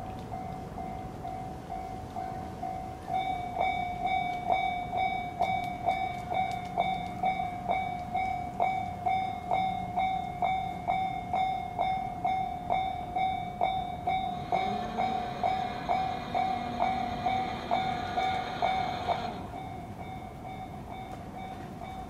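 Japanese level-crossing warning bell starting up about three seconds in and ringing steadily at about two strikes a second, the signal that a train is approaching. A few seconds from the end, a rush of noise with a short rising whine swells for about five seconds and then cuts off abruptly.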